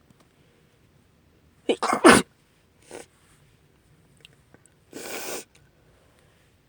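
A woman sneezes once, loudly, about two seconds in. She then sniffles twice: a short sniff about a second later and a longer sniffle near the end.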